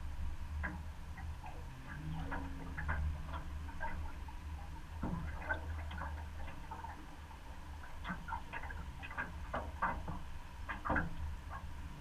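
Steady low rumble of a flooded river's current at the water's edge, with scattered irregular light clicks and ticks.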